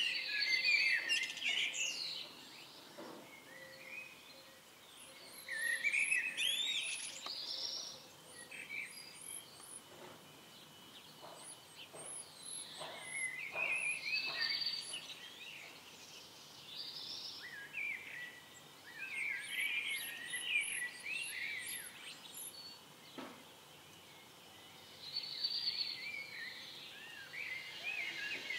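Songbirds singing: bursts of quick warbling chirps every few seconds, with rows of thin, very high chirps in between.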